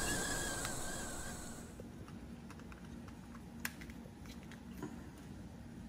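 Steady hiss from a boiling pot on a gas burner, with a faint wavering whistle, cutting off about a second and a half in. Then a few light clicks and taps as a plastic folding-probe thermometer is handled, the sharpest a little past the middle.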